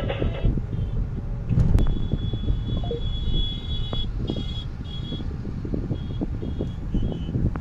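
Road traffic running past with a low rumble and a few knocks, overlaid from about two seconds in by short high-pitched beeps that start and stop several times.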